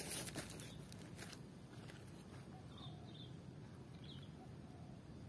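Faint short high bird chirps about once a second over a steady low outdoor background, with a few light knocks or rustles in the first second or so.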